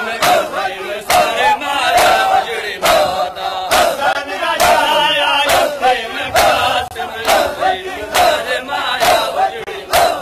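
A crowd of male mourners chanting a Sindhi noha refrain in unison while doing matam. Their hands strike their chests together in a sharp collective slap at a steady beat, a little more than once a second.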